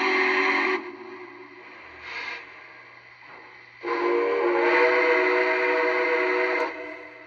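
Lionel Legacy Berkshire model steam locomotive's sound system playing its steam whistle, several tones sounding together: a blast that ends about a second in, a short toot about two seconds in, then a longer blast from about four seconds to nearly seven. A steady low hum runs underneath.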